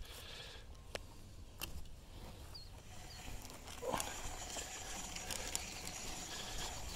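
Handheld fence reel paying out poly wire while it is carried across a grass pasture: light clicking and rattling from the turning reel, with footsteps and rustling in the grass.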